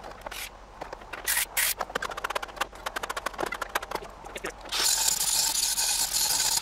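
A rapid run of sharp clicks and taps, then about five seconds in a Hypertherm plasma cutter starts up with a loud, steady hiss as it cuts into steel.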